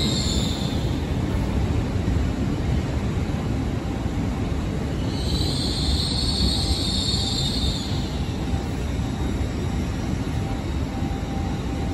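An LNER Azuma (Hitachi Class 800/801) train rolls slowly past along the platform with a steady low rumble. A high hiss swells and fades about five to eight seconds in.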